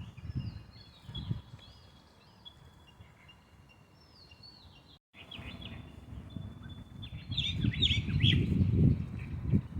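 Small songbirds chirping and twittering, with a denser, louder run of chirps near the end, over a low rumbling outdoor noise. The sound drops out for a moment about halfway.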